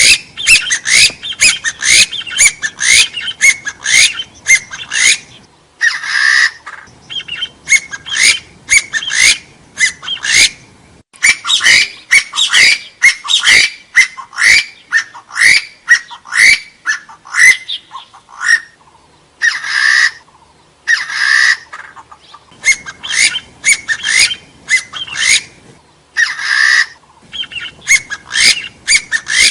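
Hill partridge (Arborophila, gà so) calling in rapid runs of short rising notes, several a second, with a few harsher, longer notes between the runs.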